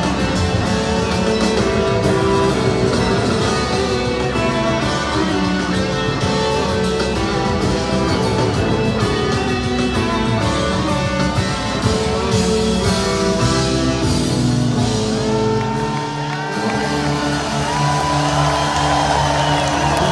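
Live rock band playing, with several electric guitars over a drum kit. In the second half a lead guitar holds long high notes that slide in pitch.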